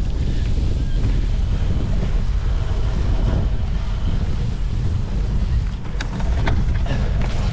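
Wind buffeting the microphone of a handlebar-mounted camera on a cyclo-cross bike being ridden, with a few sharp knocks about six seconds in.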